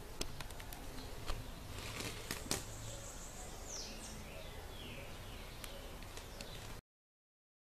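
Steady background hiss with a few sharp clicks, and a short run of high, falling chirps about three to four seconds in; the sound cuts off suddenly near the end.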